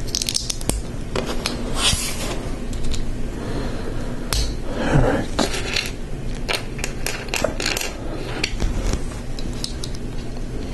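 Small plastic Lego pieces clicking and tapping against each other as they are handled and pressed together, many short irregular clicks, with a brief rubbing scrape about five seconds in.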